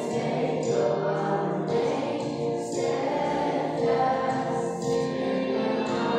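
A girl and a woman singing a song together through handheld microphones, holding long notes.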